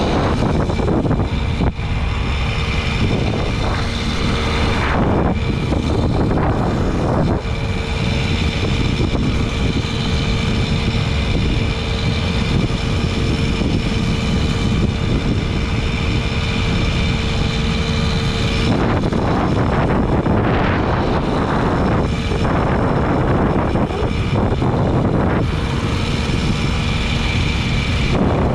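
Babetta 210 moped's small two-stroke single-cylinder engine running at a steady cruising speed, a constant buzzing drone under heavy wind rush on the microphone. About two-thirds of the way through, the steady engine note drops back under the wind noise.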